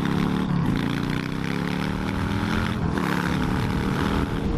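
Yamaha V-Star 1100 V-twin engine under way and accelerating, its pitch climbing steadily with a short break near three seconds before it rises again, over steady wind noise on the microphone.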